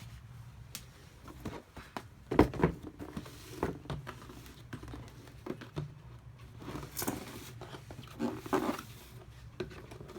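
Handling noise from football boots and their packaging: scattered knocks and clicks with brief rustles, the loudest knock about two and a half seconds in, over a steady low hum.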